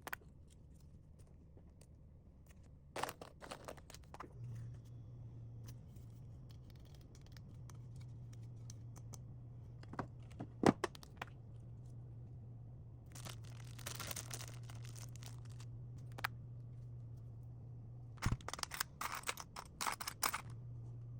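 Packaging being handled by hand: scattered clicks, rustles and short tearing sounds in several clusters, over a low steady hum that starts a few seconds in and briefly drops out near the end.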